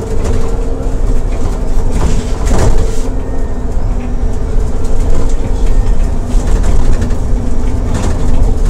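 Alexander Dennis Enviro400 double-decker bus engine running, heard from inside the lower deck: a steady low rumble with a constant hum, and a few brief rattles about two seconds in and near the end.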